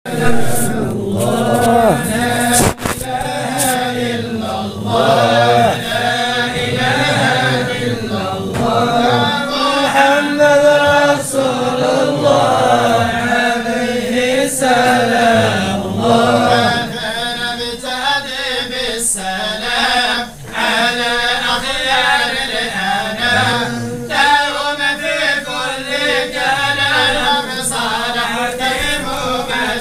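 A group of voices chanting together in unison, a slow, melismatic devotional chant of the kind sung by Moroccan samaa and madih groups.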